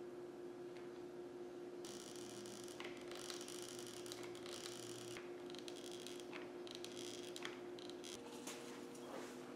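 Faint handling sounds as a hot glue gun is worked along thin wooden strips: scratchy rustling in stretches and a few sharp clicks, over a steady low hum.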